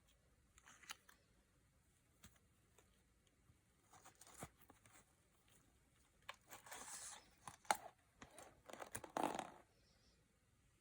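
Packaging being handled, crinkled and torn open in short bursts of rustling and crackling, the loudest toward the end, as a hairbrush is unwrapped.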